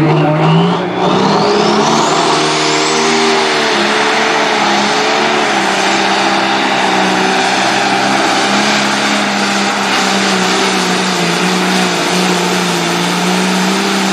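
Turbocharged pulling tractor's engine running at full power under load as it drags the weight-transfer sled. A high turbo whine climbs over the first couple of seconds, and the engine note wavers as it works down the track.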